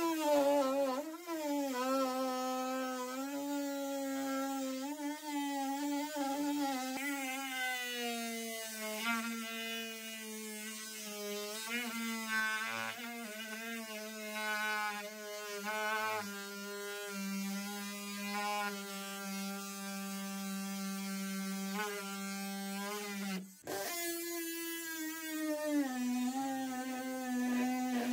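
DeWalt cordless oscillating multi-tool buzzing steadily as its blade cuts through the boat's deck floor, the pitch sagging lower as it bites in. It stops for a moment about four seconds before the end and starts again.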